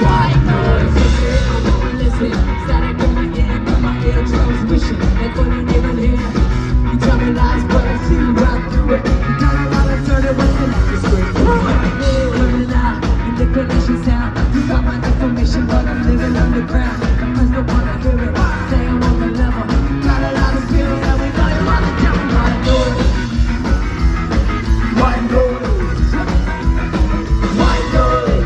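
Ska-punk band playing live at full volume, with singing over drums, bass and guitars on a steady driving beat.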